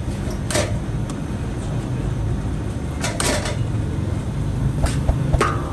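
Bakery work sounds: a steady low hum, with a few knocks and clatters as dough is handled and set on metal scale pans, a cluster of them about three seconds in.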